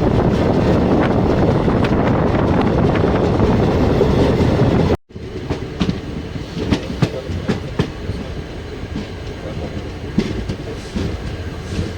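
Passenger train running on the line, with a loud steady rush for the first five seconds. After a sudden break about five seconds in, the wheels clack separately over the rail joints.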